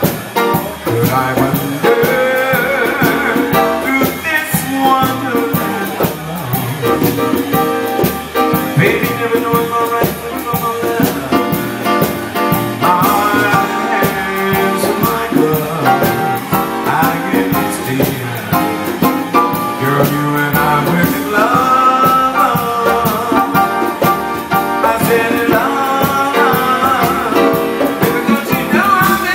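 Live band music: a man singing with keyboard accompaniment, drums and congas keeping a steady beat underneath.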